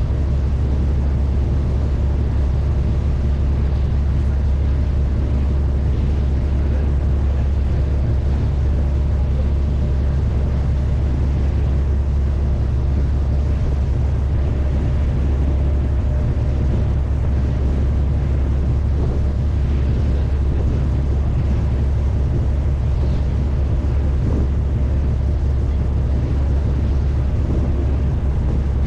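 Steady low drone of a Miyajima car ferry's diesel engines while under way, even and unchanging, with a few steady humming tones above the deep rumble.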